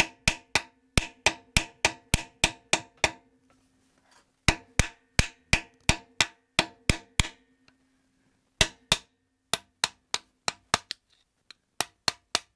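Hammer striking a flathead screwdriver set against the edge of a freeze plug in an engine block, knocking one side of the plug inward so that it tips out. Quick metal-on-metal strikes at about three a second, in several runs broken by short pauses, with a faint ringing tone under the first few seconds.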